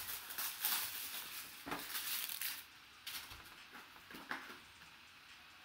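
Plastic wrapping and cardboard rustling and crinkling as a trading-card box is unwrapped and opened by hand, with a few sharp ticks. The handling eases after about two and a half seconds, leaving a few soft clicks near the end.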